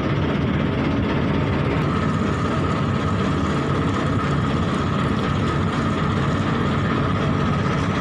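Inboard engine of a wooden fishing boat running steadily while the boat is under way.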